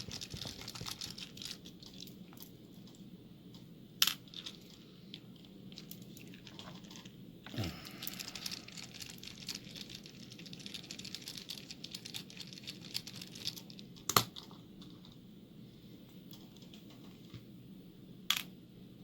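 Small metal lock parts being handled as a picked lock is taken apart with a Phillips screwdriver: faint scraping and rustling, with sharp little metallic clicks about four seconds in, about fourteen seconds in and near the end.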